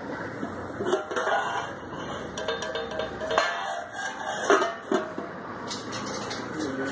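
Stainless steel pot lid and vessels clinking and clanging several times with a short metallic ring, the loudest about four and a half seconds in, over a steady background hiss.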